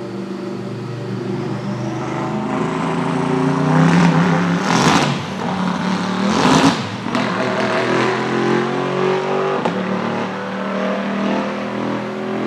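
Bentley Continental GT3 race car's twin-turbo V8 passing on a wet track. The engine note builds, two loud hissing rushes come close together near the middle as the car goes by, and then the engine climbs in pitch as it accelerates away.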